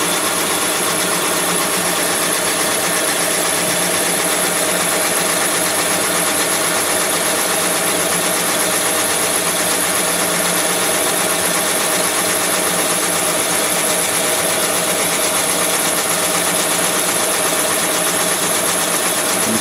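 Thompson boring bar running steadily, its cutting tool taking a dry cut down the cylinder bore of a Mitsubishi L200 engine block: an even, unbroken machine noise with a constant whine through it.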